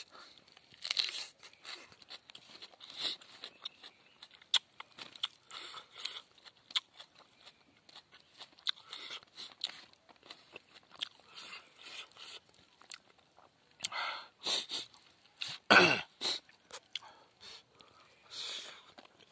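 Close-up chewing and crunching of rice, grilled pork and raw green herbs eaten by hand, in short irregular bursts. One louder, sharper mouth sound comes about three-quarters of the way through.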